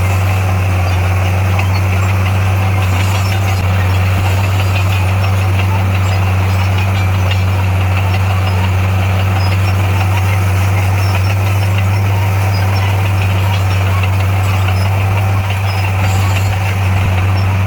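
A heavy diesel engine on earth-moving equipment running steadily with a deep, unchanging drone, dipping briefly about fifteen seconds in.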